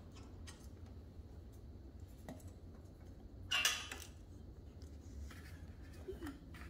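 Light metal clicks and clinks of small valve-train parts being fitted by hand on a Briggs & Stratton overhead-valve cylinder head, with one louder metallic rattle about halfway through.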